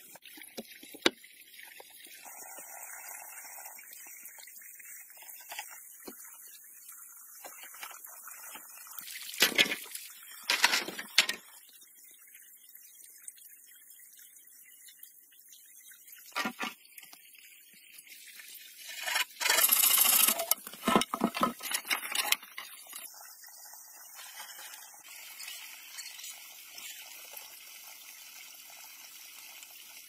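Wooden poles being handled and fitted into a frame: several bursts of knocking and scraping, loudest just before halfway and in a cluster about two-thirds of the way in, over a steady high hiss.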